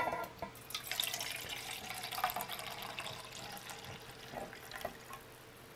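Hot instant tea poured from a glass measuring cup into a metal canteen cup, after a light knock at the start; the pour splashes into the cup for about four seconds, tapering off and stopping about five seconds in.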